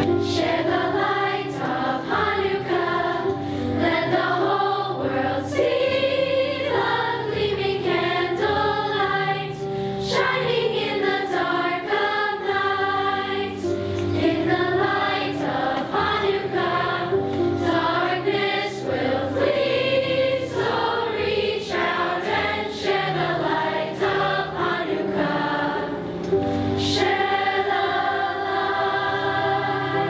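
A school choir of boys and girls singing together.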